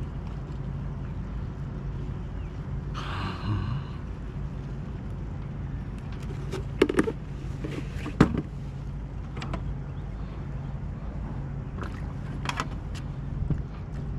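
Knocks and clicks of fishing gear against a plastic kayak, a few sharp ones about two-thirds of the way through, over a steady low hum and light water noise. A brief rushing noise comes about three seconds in.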